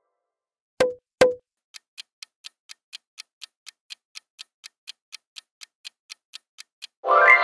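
Quiz countdown-timer sound effect: two sharp knocks about a second in, then clock ticking at about four ticks a second for some five seconds, cut off near the end by a loud rising chime.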